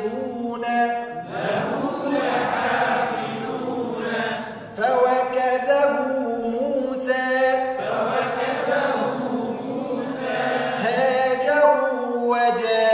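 Call-and-response Quran recitation drill. A man's voice intones a word with drawn-out vowels, and a group of voices chants it back in unison. The exchange repeats a few times.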